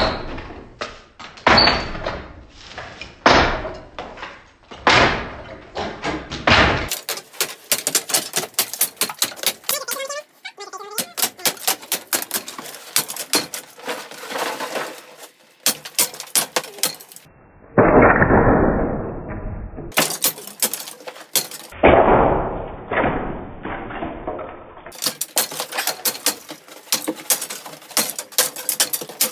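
Wall demolition: plaster and wooden lath being knocked and pried off the studs, with repeated sharp strikes, cracking and clattering. Two longer, louder stretches of noisy breaking come about two-thirds of the way in. The sound changes abruptly several times, as short clips are cut together.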